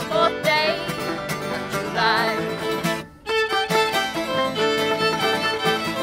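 Bluegrass acoustic trio of fiddle, five-string banjo and acoustic guitar playing an instrumental passage of an old-time tune. The sound drops out briefly about halfway through, then the fiddle, banjo and guitar carry on.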